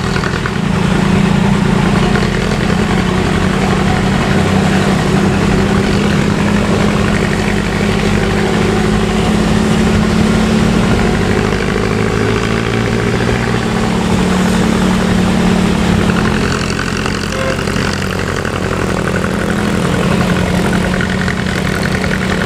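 Bus's diesel engine running steadily under load as a steady, deep, pitched drone that eases off slightly about three-quarters of the way through.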